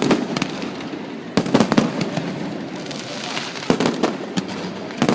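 Fireworks going off: a bang at the start, a rapid cluster of bangs about a second and a half in, then single bangs near the end, over a steady crackling hiss.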